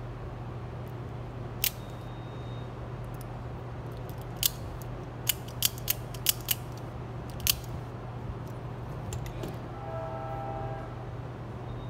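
Blue out-the-front automatic knife firing its blade out and snapping it back: a series of about eight sharp metallic clicks, most of them between four and eight seconds in.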